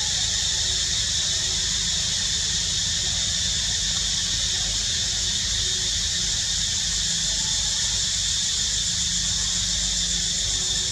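A steady high-pitched drone, with a low rumble beneath it, unchanging in level.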